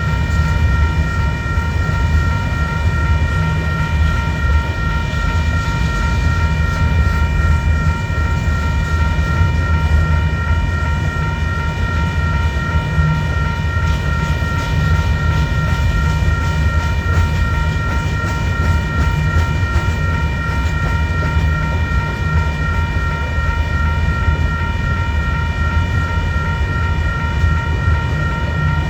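Freight train of gravel cars rolling past with a steady, loud low rumble. Several steady high-pitched tones ring over it without a break.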